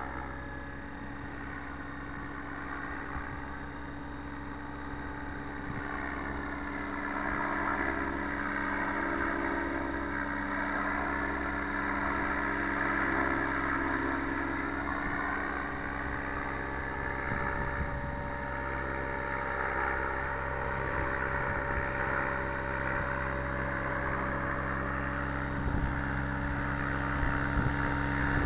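Align T-Rex 700 radio-controlled helicopter flying, a steady drone of rotor and drive whose pitch slowly rises and falls as it moves about the sky.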